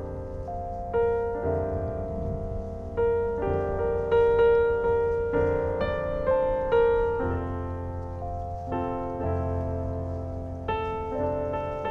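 Background piano music: unhurried single notes and chords, each note struck and dying away.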